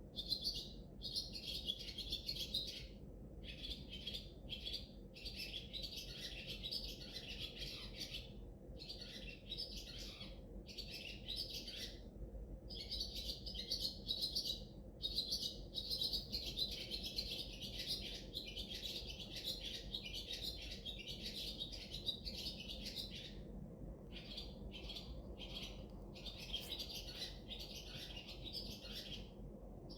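Small birds chirping in a dense, continuous chatter, with short pauses every few seconds.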